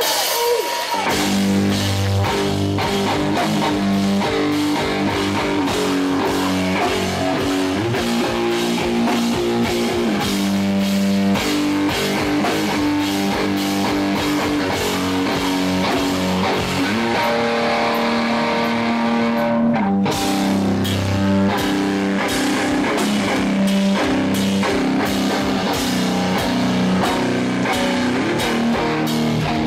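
Live hardcore punk band playing loud, distorted electric guitar chords over fast, driving drums, with a split-second stop about twenty seconds in before the band crashes back in.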